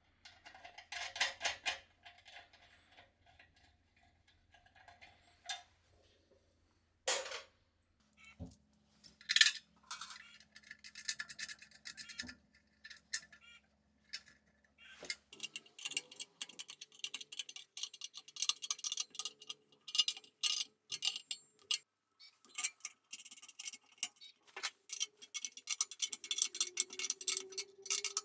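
Light clicks and clinks of small hard objects being handled, turning about halfway through into a rapid, irregular run of ticking and clinking.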